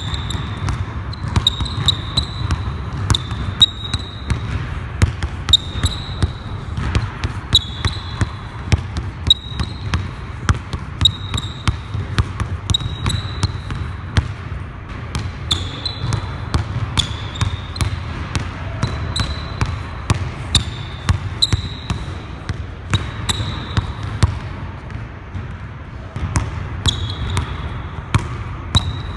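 Basketball being dribbled on a hardwood gym floor: repeated sharp bounces through the whole drill, with short high squeaks from sneakers gripping and sliding on the floor between them.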